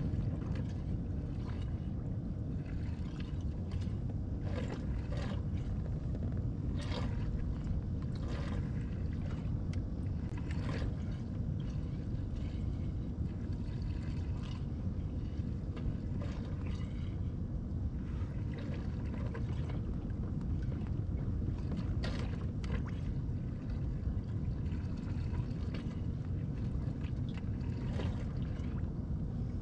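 Steady low rumble of water moving along the hull of a pedal-driven Hobie Pro Angler 14 fishing kayak underway, with faint scattered splashes and ticks.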